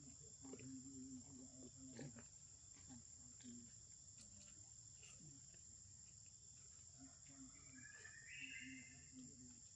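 Faint, steady high-pitched drone of a forest insect chorus, with a short chirp about eight seconds in.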